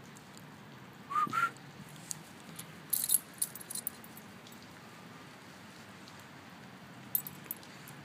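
Light metallic jingling in short clusters about three seconds in and again near the end, as of a dog's collar tags and leash clip while the dog trots on its leash. About a second in, two short high chirps, one a little higher than the other.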